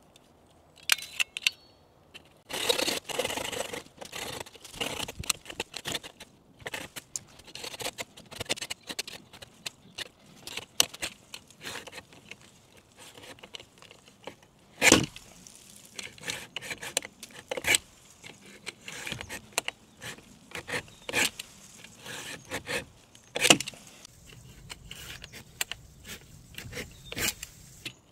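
Hand-held folding saw cutting into a branch: rough scraping strokes of the toothed blade through the wood, with many sharp clicks and knocks and a few louder knocks later on.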